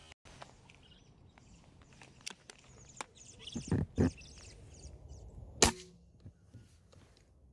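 A single sharp crack of a PCP air rifle shot about two thirds of the way through, with a short ringing after it. Faint clicks and two dull knocks come a couple of seconds before it.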